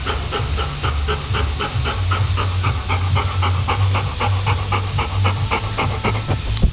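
Golden retriever panting steadily and fast, about four breaths a second.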